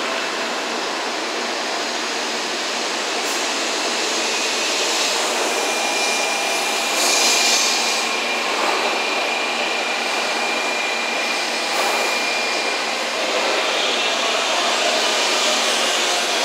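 16-car N700 series Shinkansen pulling out of the station past the platform, a continuous rush of running noise. A thin steady high tone joins about five seconds in, with a few brief louder swells of hiss.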